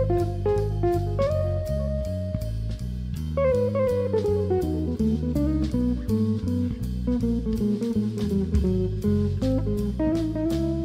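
Jazz band playing live: electric guitar over electric bass and drum kit with cymbal strokes. About three and a half seconds in, a melodic run steps downward for a couple of seconds over the steadily moving bass notes.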